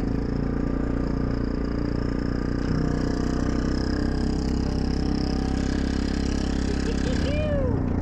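Small vehicle engine running steadily while riding across the lake ice. A few short squeaks that rise and fall come near the end.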